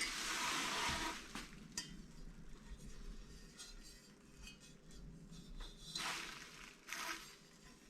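Packaging rustling and light clinking of small parts as a motorcycle exhaust is unboxed and handled, with a louder rustle at the start and again about six seconds in.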